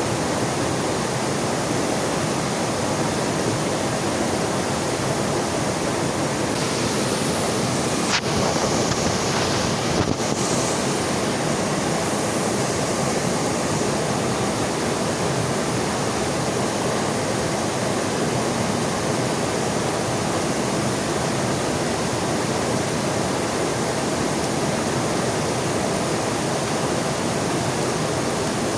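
Heavy rain falling beside a rushing river, a steady even hiss. A brief sharper stretch comes about seven to twelve seconds in, with two short clicks.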